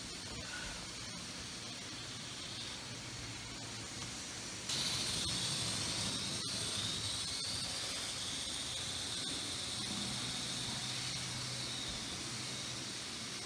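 Z-scale model locomotive's tiny electric motor running with a high whine over a steady hiss. About five seconds in the whine jumps louder and then slowly drops in pitch, with a couple of faint clicks.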